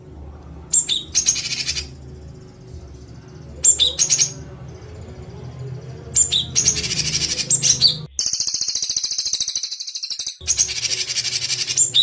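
A songbird's harsh, rapid call phrases repeated in short bursts with brief pauses, with one long buzzy rattle about eight seconds in. These are the rough "shot" phrases (tembakan kasar) played to teach caged songbirds. A faint low hum runs underneath.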